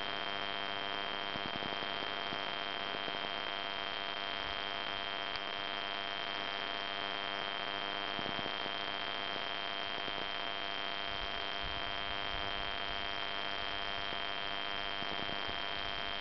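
A steady high-pitched whine over a constant hiss, unchanging in pitch and level.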